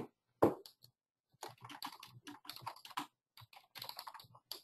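Typing on a computer keyboard: a run of quick, irregular key clicks starting about a second and a half in.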